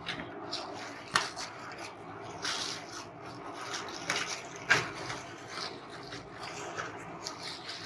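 Clear plastic bag crinkling and rustling as hands pull and handle a backpack wrapped in it, with a few sharper crackles, the loudest about a second in and near the middle.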